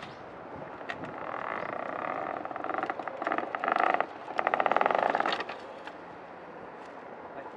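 A weathered wooden board lattice scraping and creaking against the thatch and roof timbers as it is lifted and tipped upright, a grating noise that builds from about a second in, is loudest in two stretches near the middle, and stops a couple of seconds before the end.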